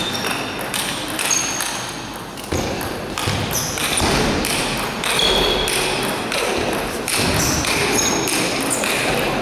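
Table tennis rally: the ball clicking off the paddles and the table in quick succession, with short high squeaks of shoes on the court floor as the players move.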